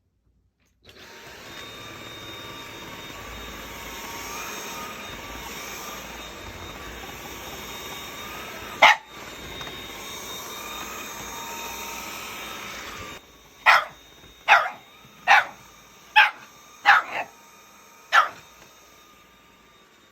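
Shiba Inu barking: one sharp bark about nine seconds in over a steady hiss, then, once the hiss cuts off, a run of seven barks, roughly one every two-thirds of a second.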